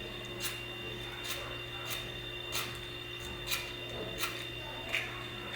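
A series of light, sharp clicks, about one every two-thirds of a second and a little irregular, over a steady hum.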